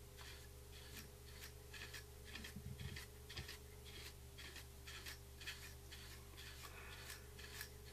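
Faint, quick bristle strokes of a wide flat brush wiping pastel powder across the side of a model grain car, two or three strokes a second, over a low steady hum.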